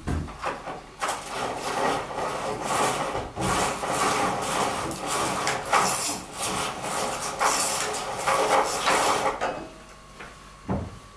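Fabric roller blind being drawn up by its cord: a continuous rasping rattle for about eight seconds, then one short knock near the end.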